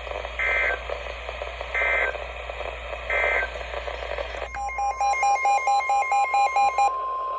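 Three short, identical Emergency Alert System data bursts, the end-of-message code, spaced a little over a second apart. About four and a half seconds in, a steady alert tone starts with a rapidly pulsing lower beep over it. All of it comes over a radio receiver's hiss.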